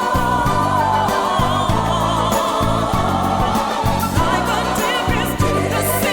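Background music with singing over a steady, pulsing bass.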